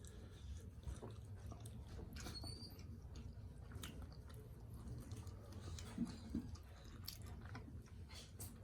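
Person chewing steamed chicken momo dumplings: soft, wet mouth sounds with small clicks, one a little louder about six seconds in.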